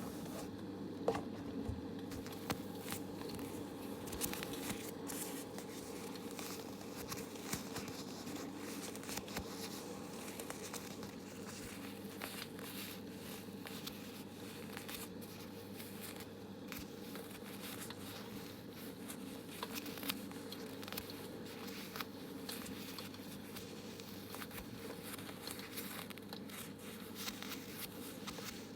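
Soft, irregular crinkling and crackling close to the microphone, many small clicks over a steady low background hum.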